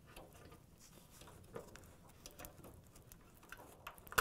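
Faint rustling and small clicks of gloved hands pressing a dryer wiring harness into plastic retaining clips on the sheet-metal frame, with one sharper click near the end.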